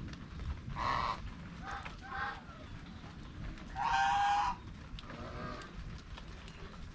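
Domestic geese honking: a call about a second in, two shorter ones soon after, and the loudest, longest honk about four seconds in, then a fainter one.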